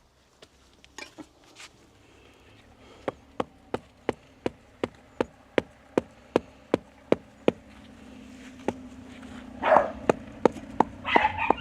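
A run of sharp, evenly spaced taps, about three a second, starting about three seconds in. Under them a low steady hum grows louder, with two short noisy bursts near the end.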